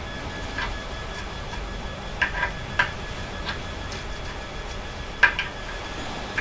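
Small hand tool worked in a steel part clamped in a bench vise, giving a handful of sharp metallic clicks: three a couple of seconds in and a louder pair about five seconds in. A faint steady high whine runs underneath.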